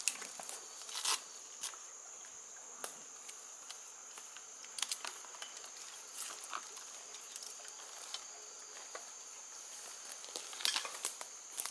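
A steady high-pitched insect drone, with scattered crackles and snaps in dry leaf litter, several of them bunched together near the end.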